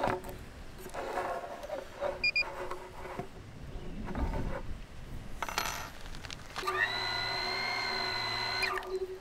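Clicks and taps of an action camera being fitted onto a small FPV quadcopter, with two short electronic beeps from the drone about two seconds in. Near the end its motors run at a steady idle whine for about two seconds.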